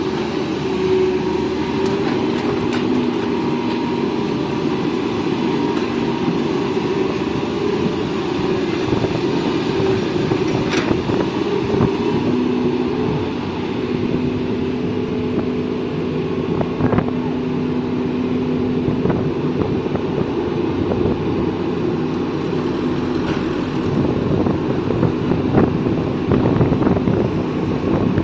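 Excavator's diesel engine running steadily under load, with a few scattered knocks and clatters that come more often near the end.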